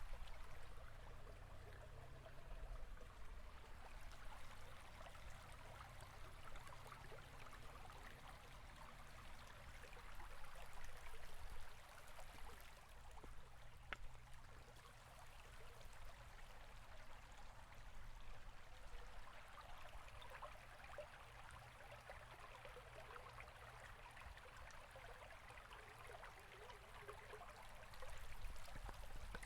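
River water flowing and babbling steadily at a low level.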